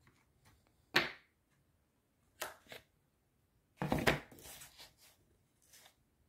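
White expanded PVC (foam board) letter pieces being set down and shifted by hand on a paper template over a workbench. There are sharp light knocks about a second in and again near two and a half seconds, then a louder cluster of knocks with a short rustle around the middle.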